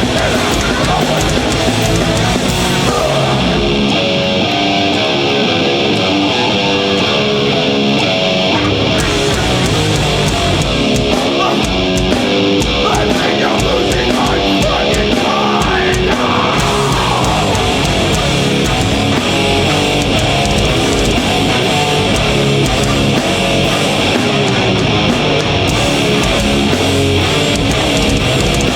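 Live heavy metal band playing loud: distorted electric guitars riffing over bass and drums. For a few seconds near the start the deep low end drops away, leaving mostly guitar, before the full band comes back in.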